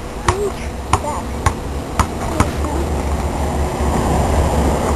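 A basketball dribbled on a concrete driveway, sharp bounces about every half second for the first two and a half seconds. Then a rushing noise with a low rumble swells and holds.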